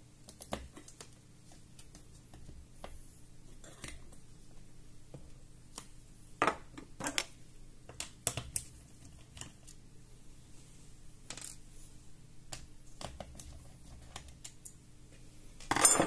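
Scattered small clicks and taps of a screwdriver and tiny screws being worked out of a laptop display's hinge, with a louder clatter near the end.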